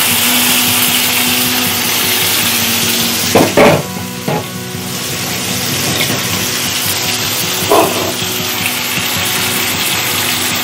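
Small amudi fish sizzling as they shallow-fry in hot mustard oil in a pan, a steady hiss. A couple of brief knocks cut through it, about three and a half seconds and eight seconds in.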